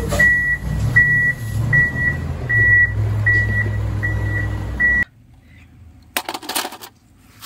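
Rear-loader garbage truck backing up: its reversing alarm beeps steadily, about one and a half beeps a second, over the low rumble of its diesel engine, and both cut off suddenly about five seconds in. A brief clatter follows about a second later.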